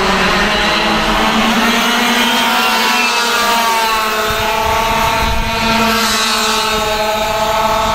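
Racing kart engine running at high revs. Its pitch dips slightly near the start, then climbs steadily from about halfway as it accelerates.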